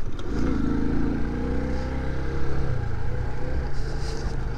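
Small-displacement motorcycle engine running at low riding speed, its note shifting a little in pitch during the first couple of seconds and then holding steady.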